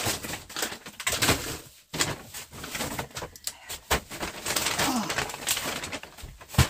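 Plastic and paper bags of frozen food rustling and crinkling as they are rummaged through and pulled from a freezer, with a couple of sharp knocks of packages against the freezer. A short low falling tone sounds about five seconds in.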